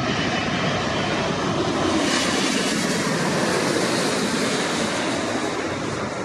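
Jet airliner's engines running loud and steady as it passes low overhead on final approach to land.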